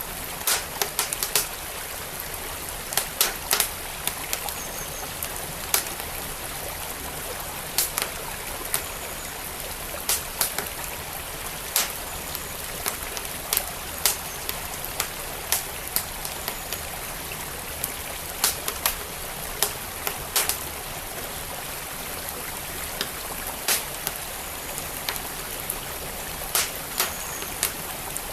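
Wood fire crackling, with sharp, irregular pops and snaps coming in little clusters, over the steady rush of a flowing creek.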